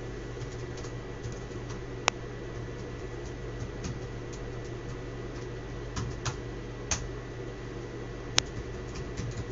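Sparse single clicks of a computer keyboard and mouse, eight or so, the sharpest about two seconds in and near the end, over a steady low electrical hum and a faint steady high tone.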